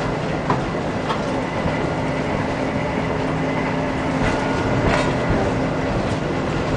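Tram running along its track, heard from inside the car: a steady hum of motors and rolling wheels, with a few sharp clicks as the wheels pass over rail joints and points.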